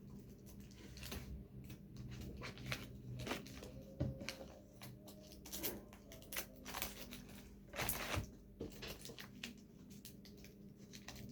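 Hands unwrapping and handling a packaged picture frame: scattered rustles, taps and light knocks at irregular intervals.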